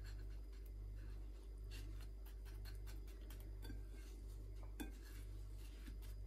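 Faint rustling and small crackling clicks of dry breadcrumbs as an egg-dipped eggplant slice is pressed and turned in them on a plate, over a steady low hum.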